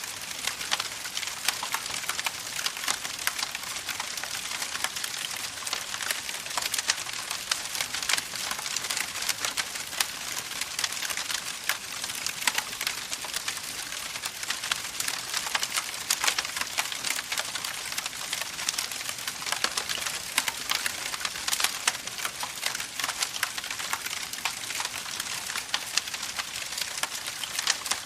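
Campfire burning with a dense, steady crackle of small pops and snaps over a soft hiss, and a few louder snaps scattered through.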